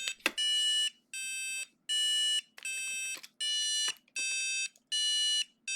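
Bolt robotic kit's buzzer beeping a police-siren pattern, alternating between two notes, C5 and D5, in buzzy tones of about half a second each, about eight beeps in all. A short click sounds a quarter second in.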